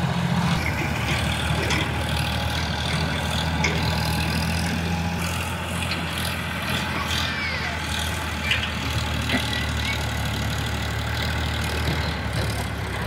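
Sonalika tractor's diesel engine running steadily as it pulls a loaded soil trailer up a dirt slope, its note dropping a little about five seconds in.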